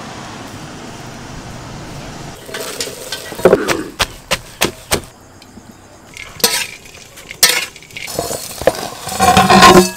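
Cookware and dishes being handled: a string of sharp knocks and clinks, with a louder ringing clatter near the end, after a couple of seconds of steady hiss.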